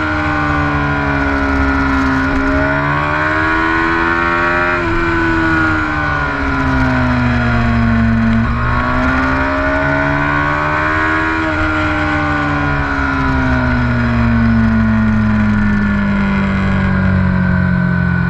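Engine of the vehicle carrying the camera under way on the road, its pitch climbing and falling back with the throttle: a rise that drops off sharply about five seconds in, a second climb, then a long easing off toward the end. Wind and road noise rumble underneath.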